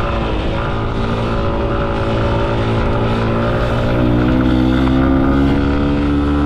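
Vehicle engine running under way; about four seconds in its pitch rises and it gets a little louder as it speeds up.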